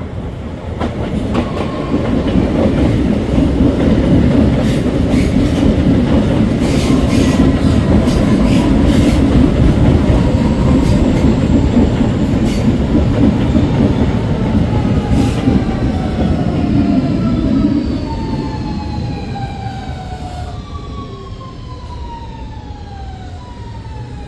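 CPTM Série 2070 electric multiple unit passing close by: a heavy rail rumble that builds, with sharp clicks from the wheels over the track. From about two-thirds of the way through, the rumble fades and the traction motors whine in several tones that fall steadily in pitch as the train slows.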